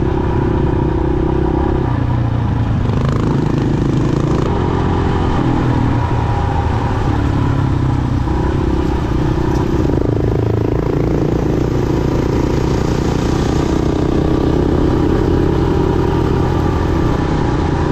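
Motorcycle engine running under way, its pitch stepping up and down several times as the revs change.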